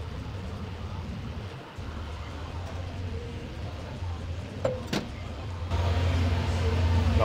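Steady low rumble of gym room ambience, growing louder in the last second or so, with two light clicks about five seconds in.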